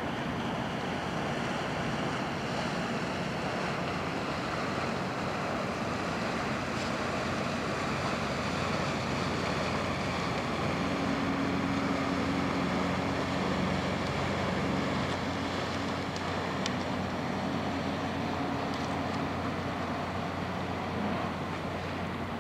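Steady low rumble of ship engines in a harbour, with wind buffeting the microphone; a low droning hum rises over it for a few seconds about halfway through.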